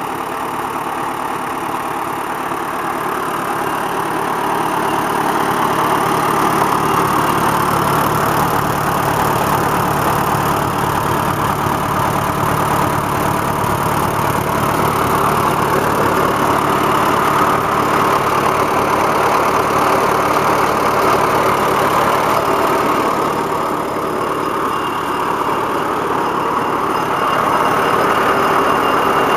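Restored Allis-Chalmers WC tractor's four-cylinder engine running steadily, its loudness easing briefly about twenty-five seconds in before coming back up.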